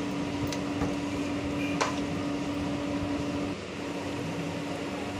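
A steady machine hum with one low, even tone. It dips briefly about three and a half seconds in, and there is a faint click near two seconds.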